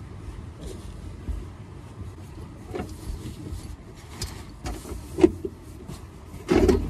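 Wind buffeting the microphone, with scattered knocks and clatter, the loudest cluster near the end.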